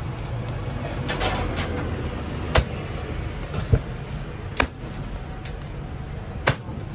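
Minced pork wonton filling worked by rubber-gloved hands in a stainless steel bowl: soft squelching and mixing, with four sharp slaps as handfuls of the filling are thrown back down into the bowl, one to two seconds apart.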